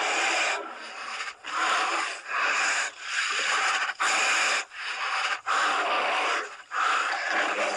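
Cartoon sound effect: a run of about nine short, rasping noise bursts, each under a second long, with brief gaps between them.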